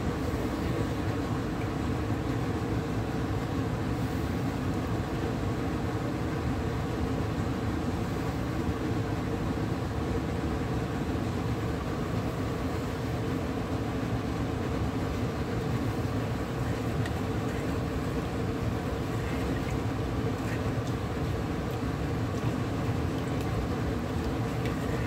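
Steady low rumble and hum around a pot of oil and sugar heating over a high gas flame, with no change in level and no distinct sizzle or stirring sound standing out.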